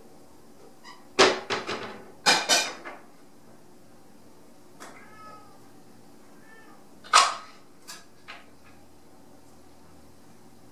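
Domestic cats calling at each other: loud, sharp outbursts about a second in, again about two seconds in and about seven seconds in, with softer meows between.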